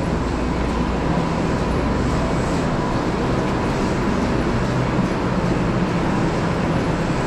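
Steady ambient noise of a large, busy railway station: a continuous low rumble and hum with no distinct events standing out.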